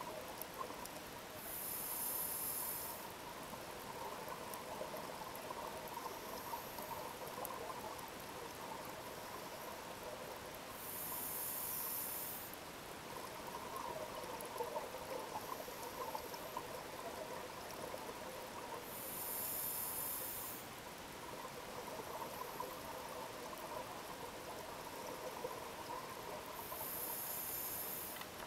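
Scuba diver breathing through a regulator underwater. About every eight seconds there is a short hiss of inhalation, and between the breaths the exhaled bubbles gurgle and trickle.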